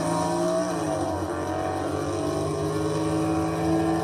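Car engine running steadily, heard from inside the cabin, its pitch rising and falling slightly.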